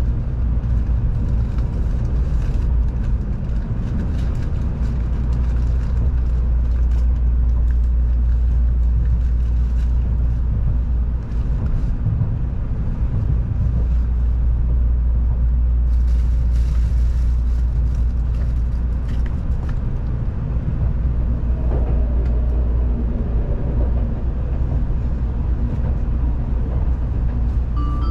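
Steady low rumble of an N700-series Tokaido Shinkansen train running, heard from inside the passenger cabin.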